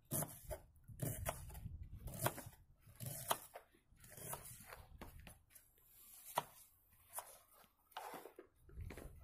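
Kitchen knife dicing an onion on a wooden cutting board: irregular sharp taps of the blade against the board, about one or two a second.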